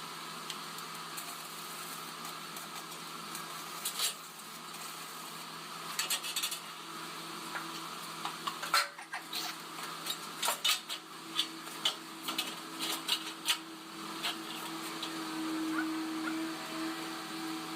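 Metal clinks and knocks, a few single ones and then a quick run of them, over a steady machine hum.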